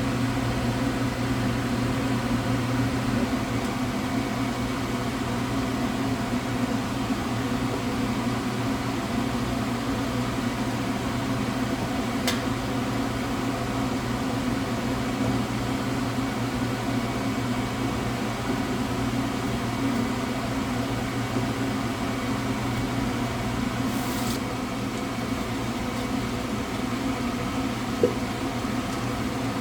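Steady motor hum of a running kitchen appliance, unchanging throughout, with a faint click about twelve seconds in and a short hiss a little after twenty seconds in.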